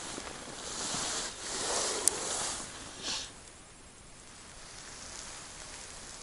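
Rustling of winter clothing and handling noise as the angler takes up a short ice-fishing rod, with a sharp click about two seconds in and a brief hiss just after three seconds. It dies down to a faint steady background.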